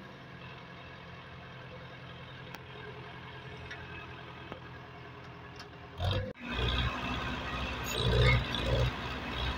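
Belarus 510 tractor's diesel engine working hard under a heavy load, hauling a loaded sugarcane trolley out of soft ground. It runs steadily at first, then after a short break about six seconds in it comes back louder and surging in pulses.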